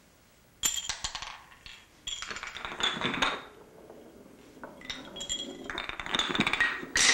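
A poker chip clinking and rattling as it rolls and drops through a run of wooden building blocks, in bursts: once about half a second in, again around two to three seconds in, and through the last two seconds.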